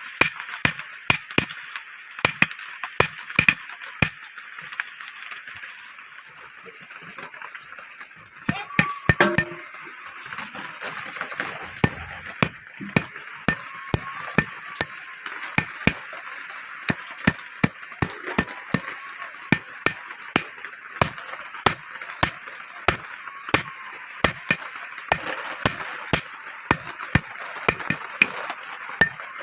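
Blacksmith's hand hammer striking hot iron on an anvil while forging a sickle blade, in a steady rhythm of about two blows a second, with a short pause a few seconds in.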